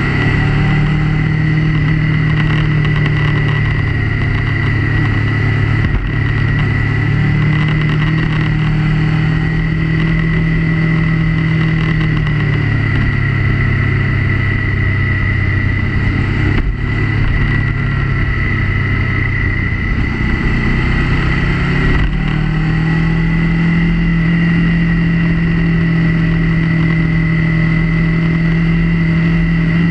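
Motorcycle engine running steadily through a ride on a winding road. Its note drops about twelve seconds in and climbs back up about ten seconds later, with a steady high whine throughout.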